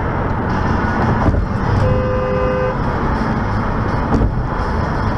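Steady road and tyre rumble heard from inside a car driving on a highway. A car horn sounds once, a single steady note lasting just under a second, about two seconds in. Two brief knocks come at about one second in and again after four seconds.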